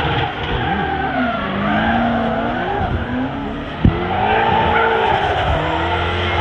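Drift car's turbocharged 2JZ-GTE straight-six revving up and down with the tyres squealing, and one sharp bang from the anti-lag system about four seconds in.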